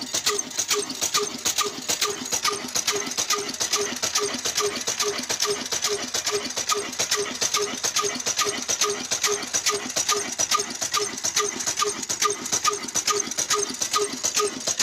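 Old 22 hp Ruston Hornsby-type stationary diesel engine running steadily under load, driving a flour mill. It knocks in an even beat about five times a second, with a fast clatter of valve gear over it.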